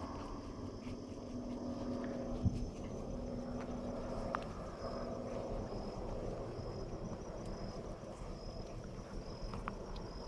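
Rural outdoor ambience: an insect, likely a cricket, chirps in a steady, evenly repeated rhythm, about one and a half chirps a second, over a low rumble of walking and wind on the microphone. A low steady hum sounds during the first few seconds.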